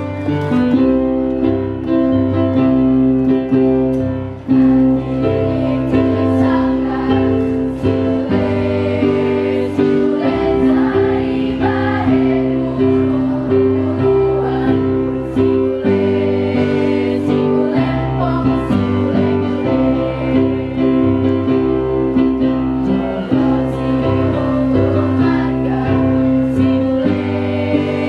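Electronic keyboard accompaniment, held chords over a stepping bass line, with voices singing over it.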